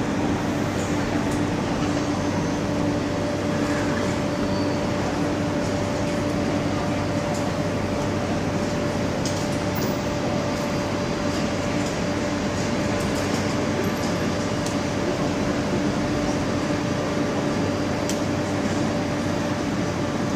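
Electric train standing at the platform, its fans and converters giving a steady hum and whir. Two low tones sit over an even rushing noise and do not change.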